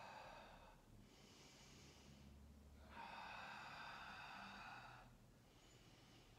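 A woman breathing slowly and softly. A faint breath in starts about a second in, followed by a louder breath out lasting about two seconds.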